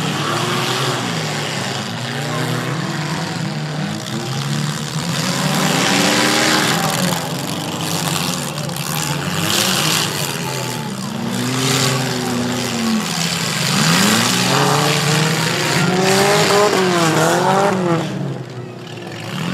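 Several figure-8 race cars' engines revving and easing off as they race around a dirt track. Their pitches rise and fall in overlapping sweeps, with quicker up-and-down revving near the end.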